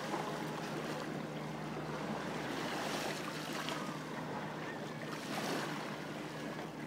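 Small lake waves lapping at a sandy shore, an even wash of water noise with a faint low steady hum underneath.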